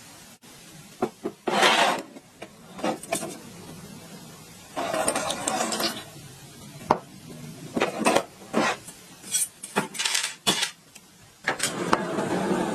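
Irregular bursts of scraping and rubbing with several sharp clicks, from hand work on the old water pump motor's metal parts; a steadier scraping noise builds near the end.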